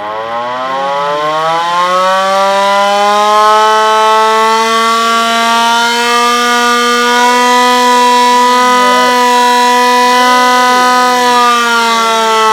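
Hand-cranked WWII air raid siren wound up: its wail rises in pitch over the first couple of seconds, then holds a loud, steady tone while the handle keeps turning.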